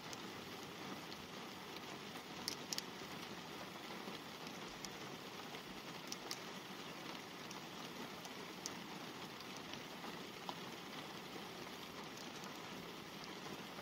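Light rain falling on a car, heard from inside: a steady hiss with single drops tapping on the glass and body every second or two.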